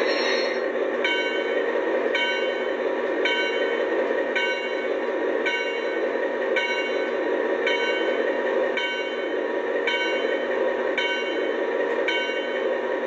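Massoth sound decoder in a garden-scale model of diesel locomotive 251 901, played through its small loudspeaker: a steady diesel engine running sound, with a bell struck about once a second from about a second in.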